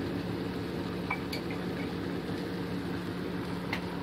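A few light metal clinks of a utensil against a cooking pot, about a second in and again near the end, over a steady low hum.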